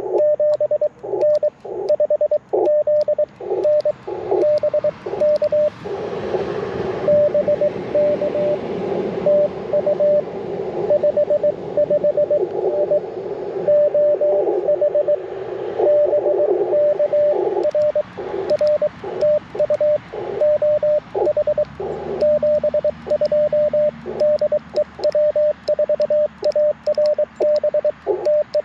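Morse code (CW) on an Icom IC-705 transceiver: a single-pitched tone keyed on and off in dots and dashes, in the hiss of a narrow CW filter. Through a middle stretch the tone comes weaker under heavier band noise.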